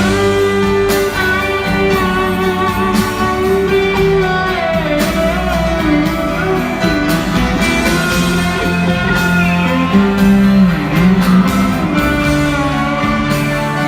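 Live rock band playing a slow instrumental passage, an electric guitar lead with sliding, gliding notes over the band.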